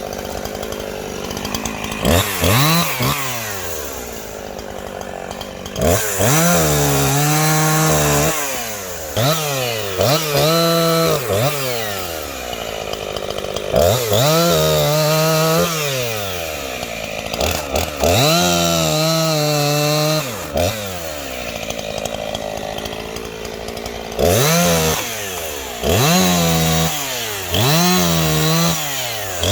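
Small Husqvarna 340 two-stroke chainsaw revving repeatedly from idle up to full throttle, holding there for a second or two while cutting wood, then dropping back to idle, about seven times.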